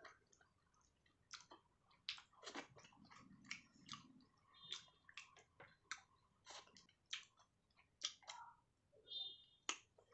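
Quiet close-miked chewing of rice and fish curry: irregular soft wet mouth clicks and smacks, one or two a second.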